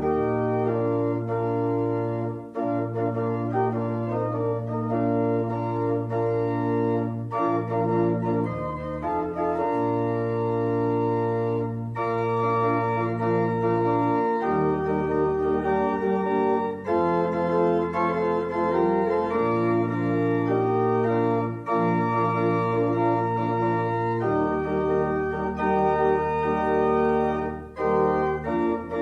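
Organ playing slow, held chords over a sustained bass line, the chords changing every few seconds with short breaks between phrases.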